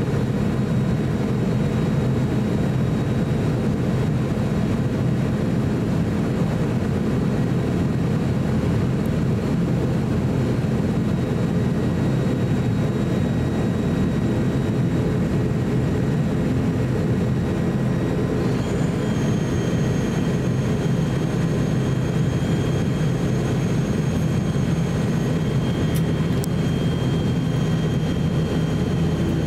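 ATR 42-600's Pratt & Whitney PW127 turboprop engines and propellers running steadily while the aircraft taxis, a low drone heard inside the cabin. About two-thirds of the way through a thin, steady high whine joins it.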